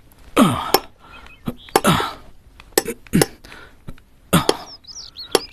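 Carpenter's hand tools working wood: a run of short, rough strokes about every second and a half, with sharp knocks between them.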